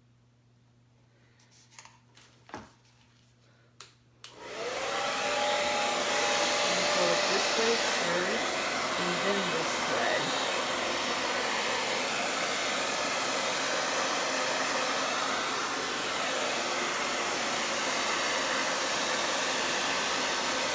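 A few light clicks, then a hair dryer switches on about four seconds in, its whine rising briefly as the motor spins up, and runs steadily, blowing on wet acrylic paint.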